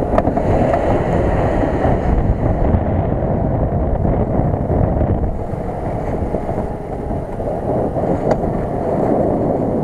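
Jeep Cherokee's engine running under load as it drives off a snowy bank and across snow, under a heavy, steady rumble of wind on the microphone.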